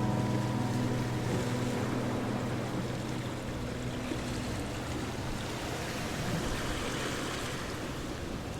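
Background music with held notes fading out over the first four seconds or so, leaving a steady rushing noise.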